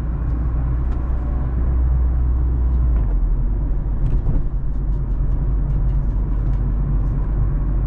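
A car driving slowly in city traffic: a steady low engine and tyre rumble with faint light ticks. The low note drops a little about three seconds in.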